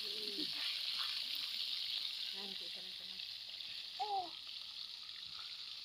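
Fish pieces frying in hot oil in an iron kadai: a steady sizzling hiss. A brief call cuts in about four seconds in.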